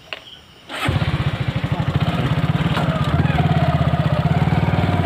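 Motorcycle engine running with a fast, even pulse. It starts abruptly about a second in and grows a little louder.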